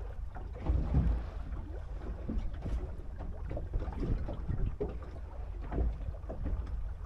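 A small boat at anchor: water slapping irregularly against the hull, with wind rumbling on the microphone. The loudest slap comes about a second in.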